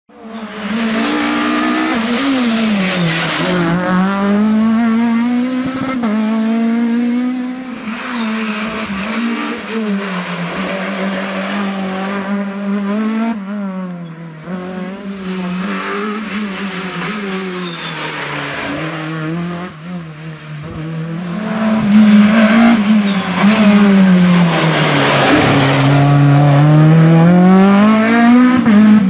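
Renault Mégane Maxi rally car's naturally aspirated four-cylinder engine at racing revs, its pitch repeatedly climbing and dropping as the car accelerates, shifts and lifts for bends. It is loudest near the end as the car passes close.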